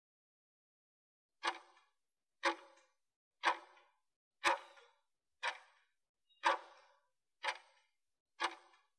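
Countdown timer tick sound effect, eight sharp ticks one second apart starting about a second and a half in, marking the last seconds of a 30-second work interval.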